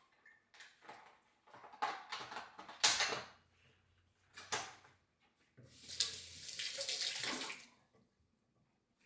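Water running or pouring in a few short spurts, then a steadier pour of about two seconds that tails off.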